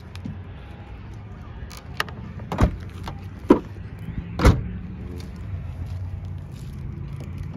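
Car trunk lid being handled and shut: a few lighter knocks and clunks, then a heavy thud about four and a half seconds in. A steady low rumble runs underneath.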